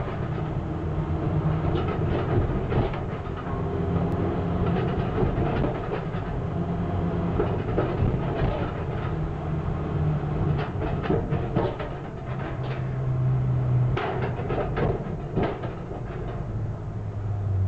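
Car rolling slowly along the decks of a car-carrying shuttle train's wagons, heard from inside the cabin. Its engine gives a low rumble, and irregular clunks and rattles come as the tyres cross the plates and joints of the wagons. The clunks are thickest in the second half.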